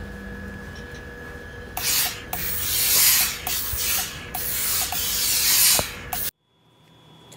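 Steam iron pressing a T-shirt, sliding back and forth with loud surges of steam hiss. It starts about two seconds in and cuts off abruptly near the end.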